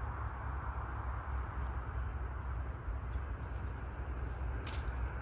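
Outdoor ambience: a steady low rumble and hiss, with repeated faint high chirps and a brief rustling hiss near the end.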